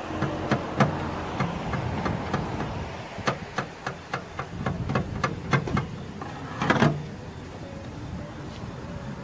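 Paintless dent repair hammer tapping a knockdown tool against the sheet metal of a car's rear door, in light, irregular taps two to four a second, with a quick run of taps just before seven seconds in. A low steady hum lies underneath.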